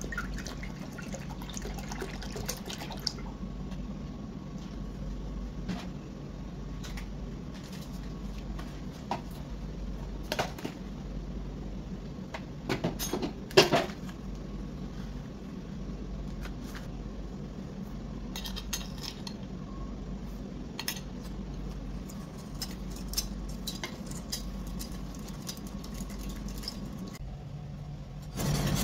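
Milk poured into an enamelled pot, followed by scattered clinks and taps of a spoon against the pot, over a steady low hum. The loudest knocks come about halfway through, as spoonfuls of starch are added.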